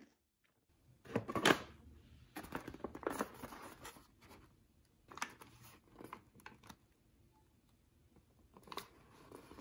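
A plastic snack pouch crinkling and rustling as it is handled, in several short bursts, the loudest about a second in.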